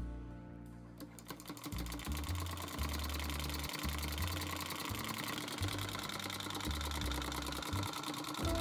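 Home-made 3D-printed solenoid engine running: the solenoid plunger and its limit switch click in a rapid, even clatter as the flywheel spins. It picks up about a second in after a push start, then runs steadily.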